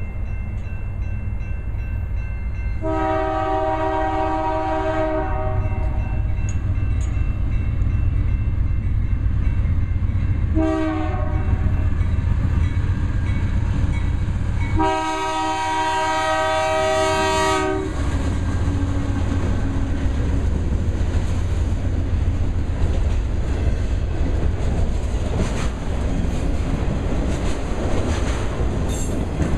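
Air horn of a BNSF GE Dash 9-44CW freight locomotive sounding the grade-crossing pattern: a long blast ending just as it starts, a long blast about three seconds in, a short one about ten seconds in, and a long one about fifteen seconds in. The locomotives then pass close by, followed by auto rack cars rolling past with their wheels clattering over the rails.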